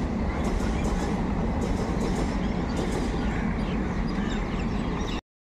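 Passenger train running on the rails: a steady rumble with faint clatter from the wheels. It cuts off abruptly near the end.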